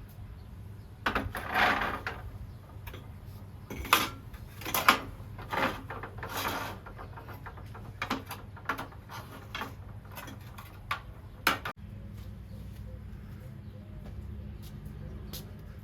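Scattered knocks, clicks and short clattering and rustling noises of objects being handled, most of them in the first half, over a steady low rumble.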